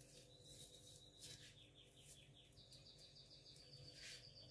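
Near silence: room tone with a faint, high, trilling chirp in the background that steps up in pitch about halfway through.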